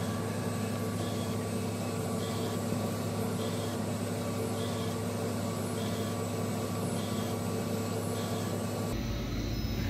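Roland UV flatbed ink printer running mid-print, laying colour ink onto metal pin blanks: a steady machine hum with a faint short sound repeating about once a second as the print carriage works.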